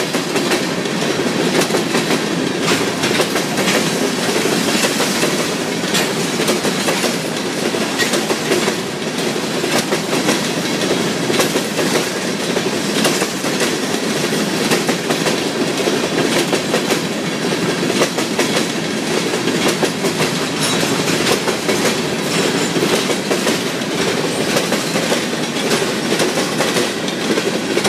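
Railroad train rolling steadily on the track, its wheels clicking over the rail joints again and again.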